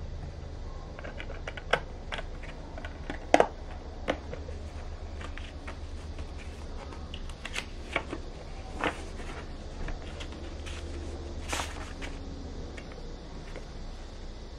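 Handling sounds of a Blu-ray steelbook and its paper inserts: scattered clicks and clacks as a disc is set back in and the metal case is closed, the loudest about three seconds in, then light paper rustling and taps as a card envelope is opened and art cards are slid out. A steady low hum runs underneath.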